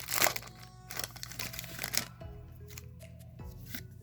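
A foil Pokémon booster pack crinkling and tearing open in short noisy bursts in the first half, then background music with steady held notes.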